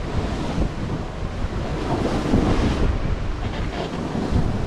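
Wind buffeting the microphone over the steady rush of water streaming along the hull of a sailboat under sail.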